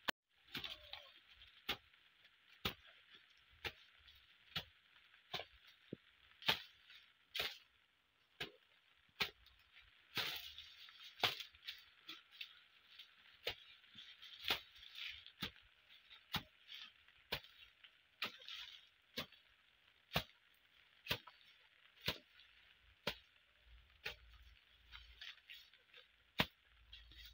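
Hand hoe chopping into soil and weeds, one sharp strike about every second in a steady rhythm.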